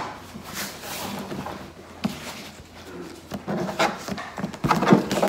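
A large cardboard gift box being set down and handled on a countertop: scattered light knocks, scrapes and rustles, busier in the last couple of seconds.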